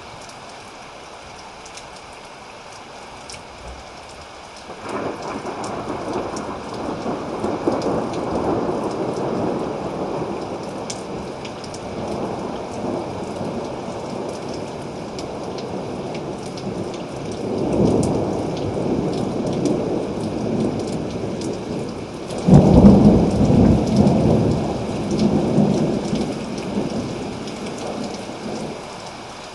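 Thunderstorm: steady rain falling while thunder rolls in about five seconds in and rumbles on, swells again later, then breaks in a sudden, loudest clap past the two-thirds mark and rolls away.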